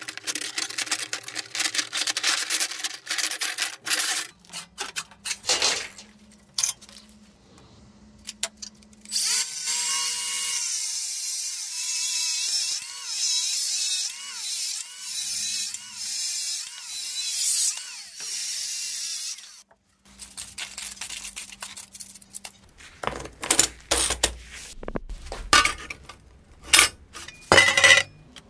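Steel saw blades clattering and clinking as they are handled on a workbench. Then a cordless angle grinder with a cutoff disc runs steadily for about ten seconds, cutting steel, its pitch wavering under load. Near the end come sharp metallic clanks as pieces of cut saw blade are handled.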